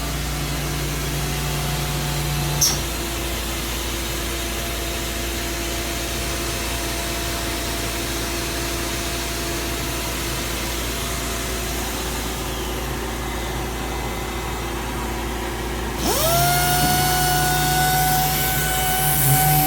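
Robotic sanding machine's motors running with a steady hum. A short click comes about three seconds in as one tone cuts out. Near the end a motor spins up with a quick rising whine, then holds a steady pitch, louder.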